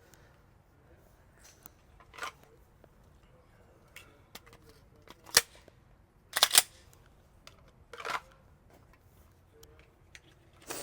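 A few scattered sharp clacks and knocks, the loudest a close pair a little past the middle.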